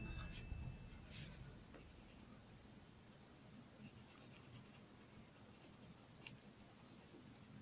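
Faint scratching of a coloured pencil shading on paper, coming and going with the strokes. The end of the background music dies away in the first second.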